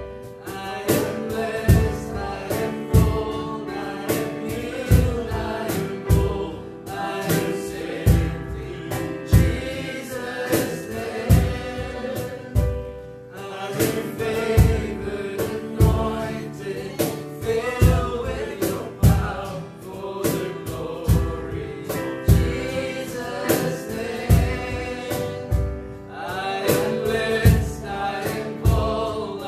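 Live worship song: male voices singing over a strummed acoustic guitar and a Technics keyboard, with a steady percussion beat about once a second.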